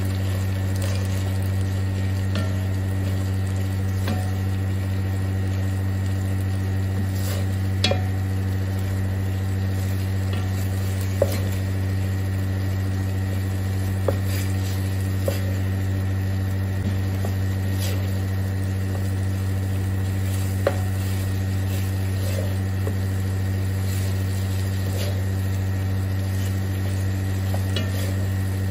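Wooden spoon stirring and scraping chickpeas frying with tomato paste in a pot, with a light sizzle and a few sharp knocks of the spoon against the pot. A steady low hum runs underneath and is the loudest sound.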